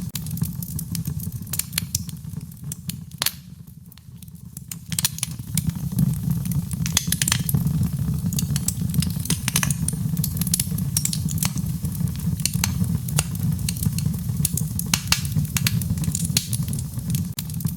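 Wood fire crackling in a fireplace: irregular sharp pops and snaps over a steady low rumble of the flames, briefly quieter about four seconds in.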